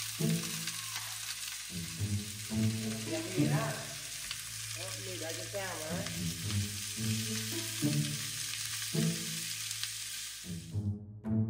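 Noodles sizzling and frying in a hot pan, a steady hiss that cuts off suddenly near the end. Background music with low notes repeating about once a second plays under it.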